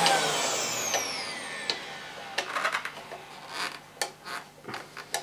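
1980s Hoover Portapower hand-held vacuum cleaner's motor running down, its whine falling in pitch and fading over the first couple of seconds. Then a scatter of light plastic clicks and knocks as the casing and its sticking flap are handled.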